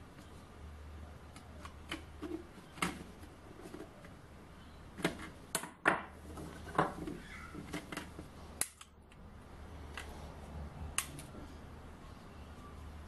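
Small metal parts clicking and knocking as they are handled and set down on a wooden workbench while a magnet base is fitted to a tread depth gauge; a scatter of sharp clicks, thickest and loudest a little before the middle.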